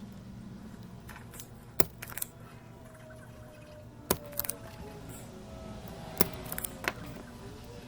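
A series of sharp, small clicks and taps, about seven in all in small groups, from small tools working on an electronics circuit board, over a steady low hum.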